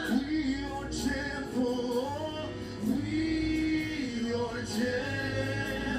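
Worship song: male and female voices singing slow, held melodic lines over a steady bass.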